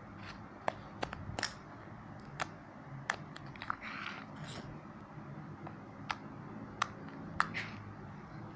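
Slime being squeezed and worked in the hands, giving about ten sharp, irregularly spaced pops and clicks.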